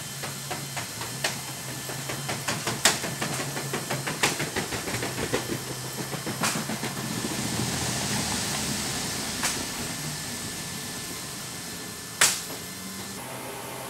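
Pallet of wooden ordnance crates being pushed along the roller floor of a C-17 cargo hold: a quick run of rattling clicks and knocks from the rollers, then a single sharp knock near the end, over a steady hiss and low hum.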